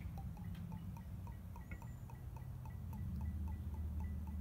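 Irish cream glugging out of the bottle neck into a shot glass: a steady run of soft glugs, about four or five a second.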